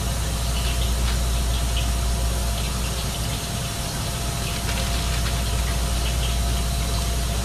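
Pot of frying oil heating on the stove, a steady bubbling, water-like hiss over a low hum. The noise is the sign that the oil has not yet reached frying temperature.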